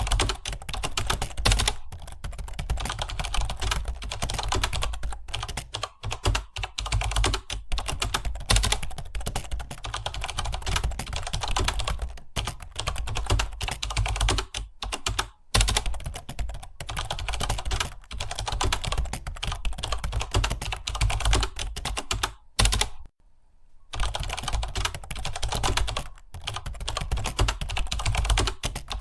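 Fast, continuous typing on a computer keyboard, a rapid run of key clicks with a short pause late on.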